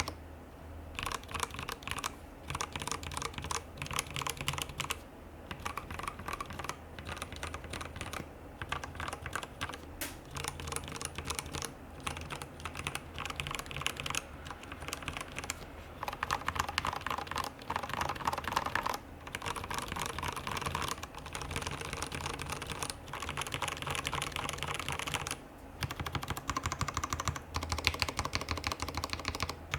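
Rapid, continuous typing on a RAMA WORKS KARA mechanical keyboard with lubed Cherry MX Black linear switches, a polycarbonate plate with silicone dampening and GMK keycaps, broken by short pauses every few seconds.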